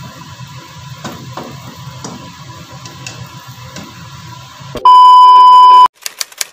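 Wooden spatula knocking and scraping in a nonstick wok as noodles and vegetables are stirred, over a low hum. About five seconds in, a very loud steady electronic beep lasts about a second, then a quick run of sharp clicks follows.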